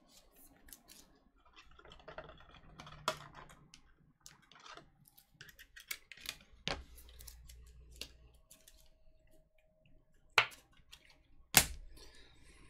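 Trading cards being handled: scattered light clicks and soft rustles, with two sharper taps near the end.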